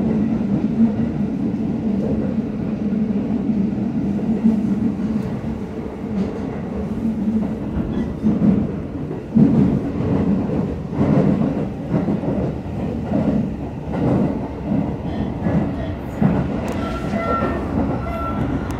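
Aonami Line electric commuter train running at speed, heard inside the carriage: a steady rumble and motor hum. From about eight seconds in, irregular knocks and clatter come from the wheels on the track.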